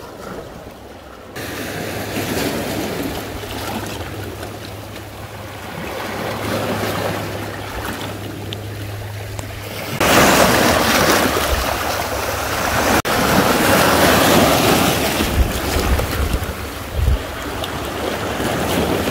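Sea surf washing and breaking over shore rocks, with wind buffeting the microphone. The wash gets louder and hissier about ten seconds in.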